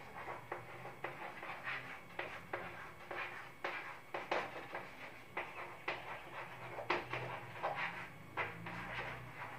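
Chalk writing on a blackboard: an irregular run of short scratches and taps, several a second, as a word is written out.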